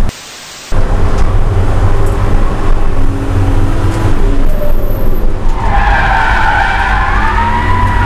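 BMW E36's engine running at around 5,000 rpm, heard from inside the cabin, with the sound briefly dropping out just after the start. From about five and a half seconds in, the tyres squeal with a wavering pitch as the car slows and turns into a corner.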